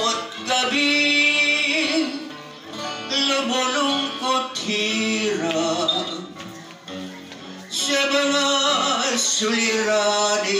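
A man singing a slow Tagalog song into a microphone, holding long notes across three phrases, with an acoustic guitar strumming along.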